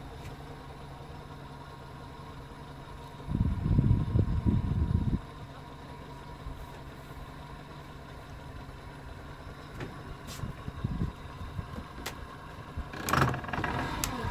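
Boat motor idling with a steady low hum, with a couple of seconds of loud low rumbling about three seconds in and a brief louder rush near the end.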